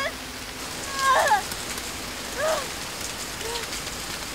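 Heavy rain falling steadily, with three short wailing cries that each rise and fall in pitch, about a second apart.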